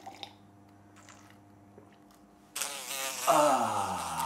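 A man's loud, drawn-out vocal cry that starts about two and a half seconds in and slides steadily down in pitch, with a few faint clicks before it.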